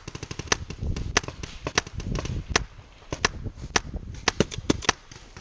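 Paintball markers firing: a string of sharp pops, several a second and unevenly spaced, some louder and nearer than others.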